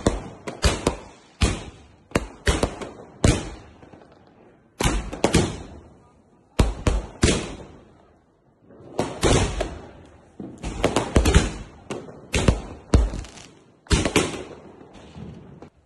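Firecrackers going off: a string of sharp bangs at uneven intervals, several in quick clusters, with short lulls about four and eight seconds in.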